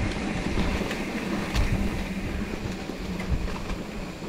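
Mountain bike rolling over a dirt trail, its frame and parts rattling with a scattering of short knocks from the rough ground, under a steady noisy rumble.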